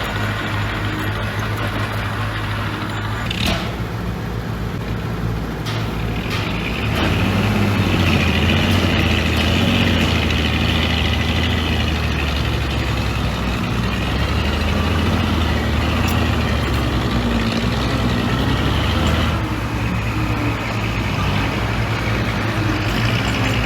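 Heavy diesel engine of earthmoving machinery running steadily. It gets louder about seven seconds in, as if working under load, and eases back after about nineteen seconds. A brief hiss comes about three and a half seconds in.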